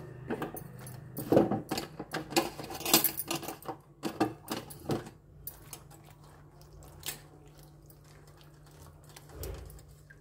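Green chillies being swished by hand in water in a stainless steel bowl: splashing with quick clinks against the steel, busy for about five seconds, then only a few scattered light taps. A steady low hum runs underneath.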